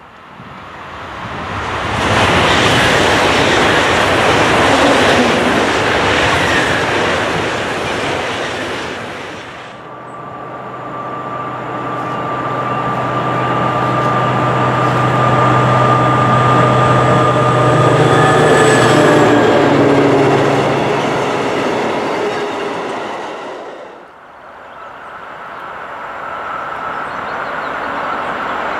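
An ICE high-speed train passes at speed with a loud, even rush of wheel and air noise. Then a diesel locomotive hauling tank wagons passes with a steady low engine drone and a whine, its pitch dropping as it goes by. Near the end a freight train approaches, growing louder.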